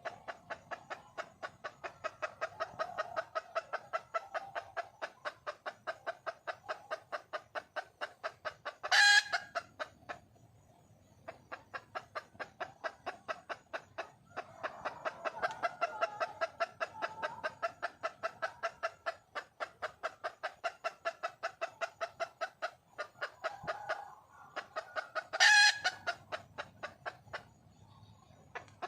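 Wild junglefowl hen calling for a mate: long runs of rapid clucks, about four or five a second, with a short break partway through. Two much louder, sharper calls stand out, about nine seconds in and near the end.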